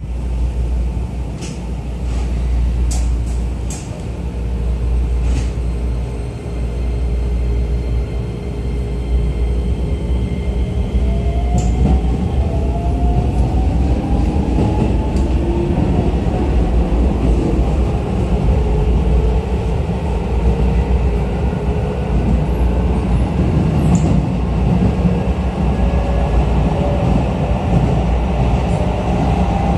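Keisei New 3000 series electric train heard from inside the car as it pulls away and gathers speed: a steady low rumble from the running gear, with a whine from the traction motors rising in pitch about ten seconds in. A few sharp clicks sound in the first few seconds.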